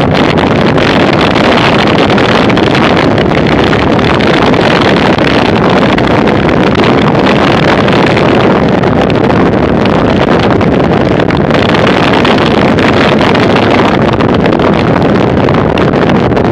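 Steady, loud wind rush buffeting a bicycle-mounted action camera's microphone while riding at about 20 km/h.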